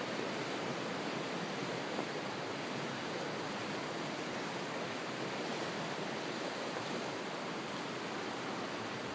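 River water rushing steadily, an even hiss.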